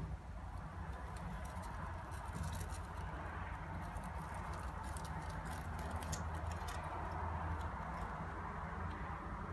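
A dwarf hamster's claws pattering and scratching on the floor and ramp of a homemade maze as it scurries through: a run of quick light clicks from about two seconds in until about seven seconds in, over a steady low hum.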